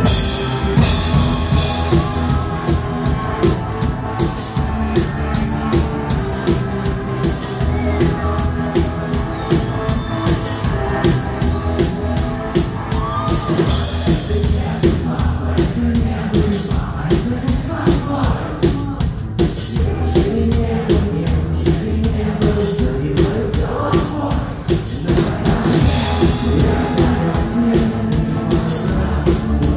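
Rock band playing live: a drum kit keeps a steady beat under guitars and bass, loud through the venue's PA.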